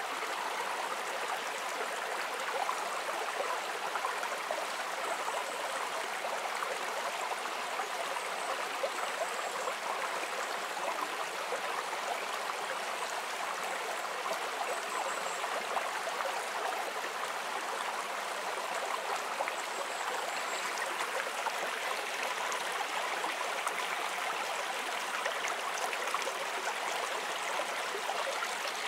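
Shallow woodland stream running over rocks and small rocky steps, a steady, even rush of water.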